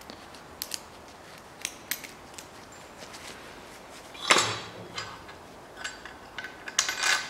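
Metal clinks and knocks as an alternator is handled and fitted to its mounting bracket on a Land Rover Series III engine: a few light clicks, one loud clank about four seconds in, then a quick cluster of sharp clicks near the end.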